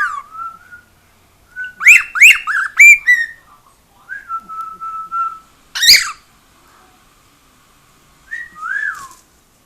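Pet cockatiel whistling its song: a quick run of rising-and-falling whistled notes, then a held steady note, one sharp loud call about six seconds in, and a last falling whistle near the end.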